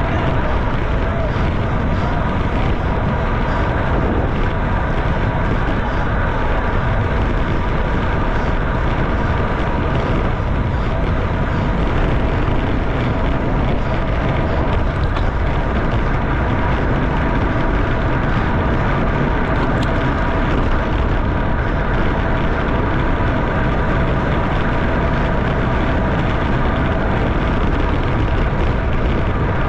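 Steady wind rush and road noise on a bike-mounted camera's microphone as a road bike is ridden at about 25 mph, with a faint steady hum underneath.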